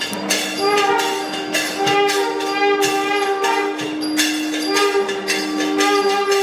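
South Indian temple procession music: a nadaswaram playing a melody of held notes over a steady drone, with frequent thavil drum strokes and cymbal beats.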